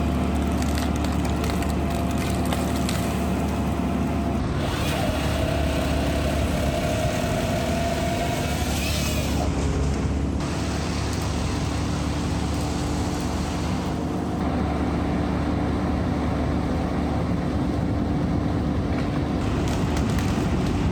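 Diesel engine of a Merlo crane running steadily under hydraulic load, with a higher whine that swells and fades about a third of the way through.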